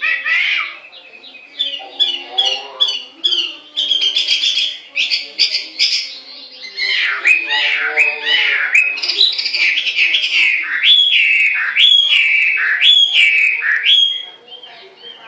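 Chinese hwamei (melodious laughingthrush) singing a loud, varied whistled song. Quick repeated notes give way to a run of falling slurred whistles about one a second, and the song drops away near the end.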